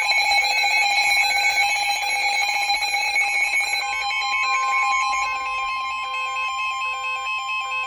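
Weather radio alert tones: a loud electronic alarm of several tones stepping on and off in a repeating pattern, joined about four seconds in by a single steady high tone, the NOAA Weather Radio warning alarm tone that comes just before a broadcast warning.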